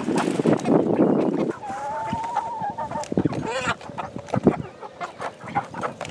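Cornish Cross broiler chickens calling and clucking: a long drawn-out call about a second and a half in, then a shorter call that rises and falls, with scattered light taps. A dense rustling noise runs through the first second and a half.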